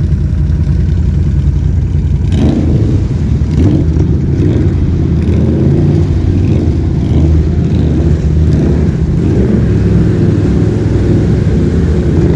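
ATV engine running steadily under load while wading through deep water, with water splashing and washing around the machine.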